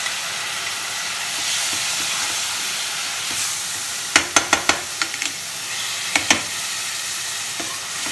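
Ginger-garlic paste sizzling steadily in hot oil with fried onions as it is stirred in the pan. About halfway through, a quick run of four or five sharp knocks of the spoon against the pan, then two more a couple of seconds later.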